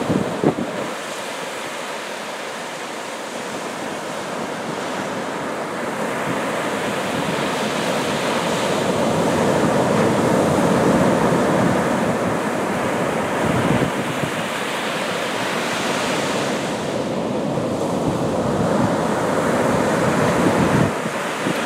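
Rough Gulf of Mexico surf breaking and washing onto a sandy beach, a steady rush of water that swells to its loudest about halfway through, eases, and builds again near the end.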